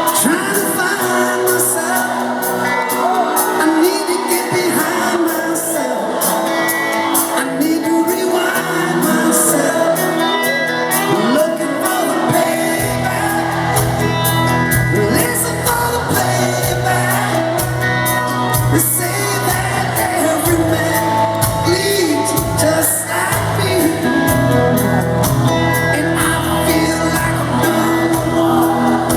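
Live rock band playing in a large hall, with singing voices and shouts over it; the bass comes in about halfway through.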